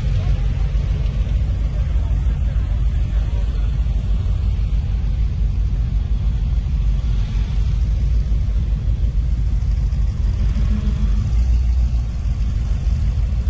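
Classic cars' engines rumbling at low speed as they roll slowly past on grass. The rumble is steady and grows strongest near the end as a mid-1950s Cadillac convertible's V8 passes close by.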